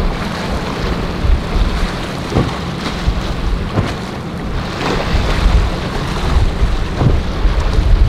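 Suzuki outboard motor of a center-console boat running steadily through choppy inlet water, with splashing spray and surf and a few sharp splashes, under heavy wind noise on the microphone.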